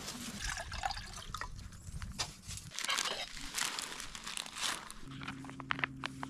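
Small fire of sticks and dead fern crackling in a lightweight titanium wood-burning stove, with irregular sharp pops and clicks. A metal cooking pot's lid is handled on top of it.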